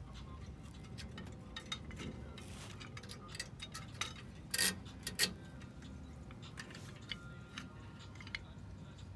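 Small metal parts clicking and clinking as drum-brake parking-brake hardware is worked into place by hand, with two sharper clicks about halfway through.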